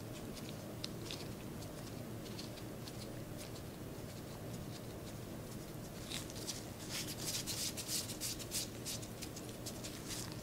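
Hands in disposable gloves pressing and rolling a small ball of cookie dough between fingers and palms: soft scattered ticks of glove and dough, becoming a quick run of crackly rustling from about six seconds in, over a faint low hum.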